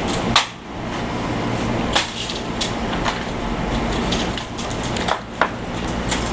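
A few sharp, irregularly spaced taps and clicks as a cable is fixed to an outside wall by hand, over a steady background hum.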